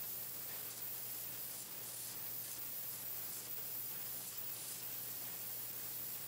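Pencil painting machine running: a steady hiss over a constant low hum, with faint irregular swishes about once a second as pencils feed through.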